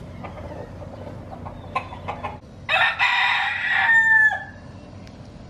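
A rooster crowing once, about three seconds in, lasting about a second and a half and ending on a drawn-out note.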